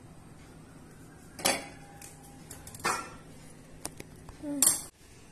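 A glass cup and a stainless steel mixing bowl clink and knock as they are handled: four separate sharp strikes, roughly a second apart.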